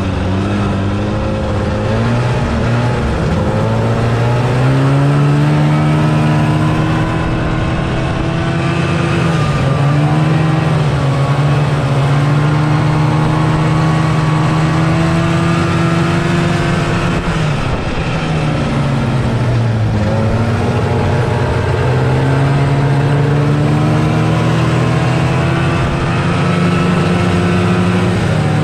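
STELS Viking 600 snowmobile engine running under way. The revs climb a few seconds in, dip briefly about nine seconds in, fall away again around eighteen seconds and then build back up to a steady pitch.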